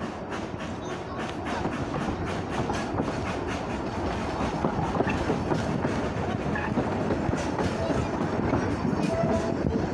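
Isle of Man Railway 3 ft narrow-gauge steam train running along the line: the carriages rumble steadily, and the wheels clatter over the rail joints.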